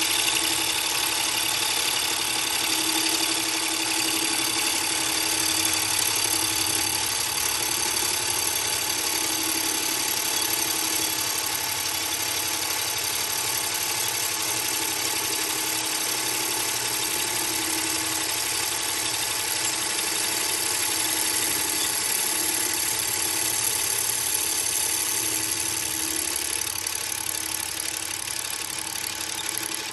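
Drill press spinning a Stew-Mac Safe-T-Planer cutter disc, planing the face of a wooden block clamped in a vise. It makes a steady running sound, several held tones over a hiss, that eases slightly near the end.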